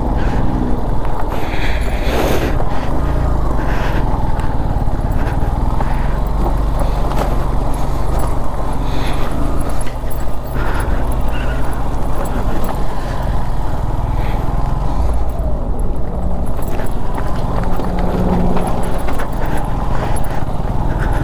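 Motorcycle engine running steadily while riding, with wind and road rush on the microphone.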